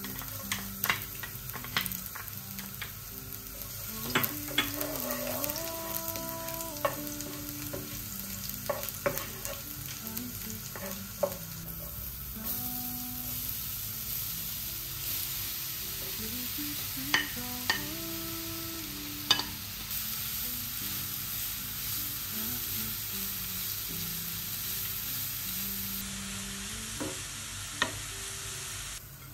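Minced garlic and then grated carrots frying in hot vegetable oil in a nonstick pan: a steady sizzle that gets louder about halfway through, when the carrots go in. A wooden spoon knocks and scrapes against the pan many times as it stirs.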